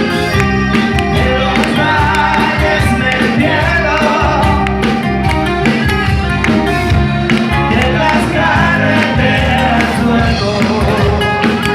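Pop-rock band music with a steady drum beat, bass and guitars, and a wavering lead melody line above them.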